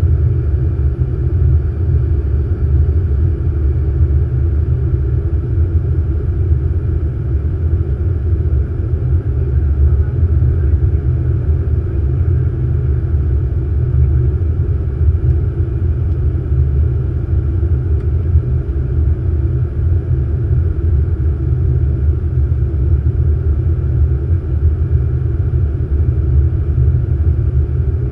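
Steady low rumble of flight-deck noise in an Airbus A380 cockpit on approach, the airflow and engine noise holding even with no change in pitch or level.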